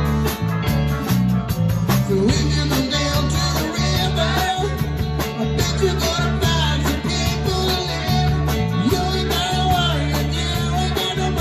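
Live rock band playing loud through amplifiers: electric guitars, electric bass and a drum kit keeping a steady beat.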